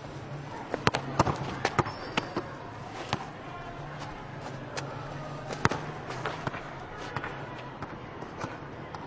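A football being kicked and bouncing on the hard schoolyard ground: irregular sharp thuds, thickest in the first few seconds, over a low steady hum.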